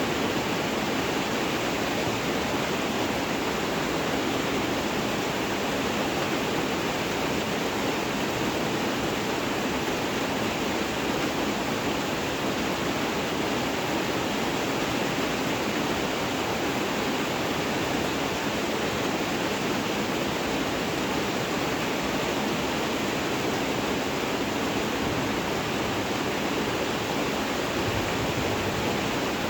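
Rain falling steadily: an even, unbroken hiss with no single drops or other sounds standing out.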